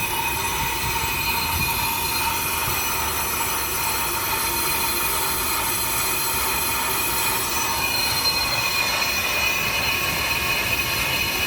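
A brake lathe is skimming a brake part as it turns under an automatic feed. The cutting tool on the turning metal gives a steady metallic squeal with several high tones, over the lathe's running noise.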